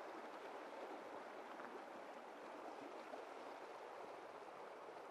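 Faint, steady rush of a fast, riffled river current.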